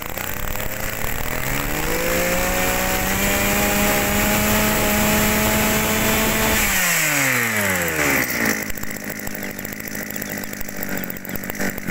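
Kioritz 260 brush cutter's small two-stroke engine revved from idle to full throttle, held high and steady for about five seconds, then released, its pitch falling back down to idle.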